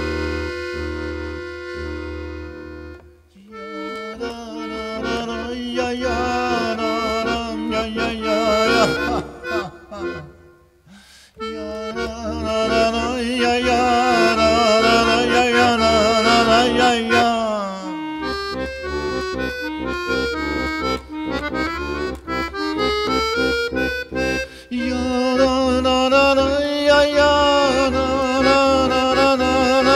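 Solo piano accordion playing an instrumental passage of held chords and a moving melody, in phrases broken by short pauses, the longest about ten seconds in.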